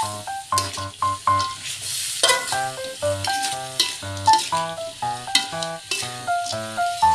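Instrumental background music with a melody over bass notes, laid over tempeh and anchovies sizzling as they are stir-fried in a pan.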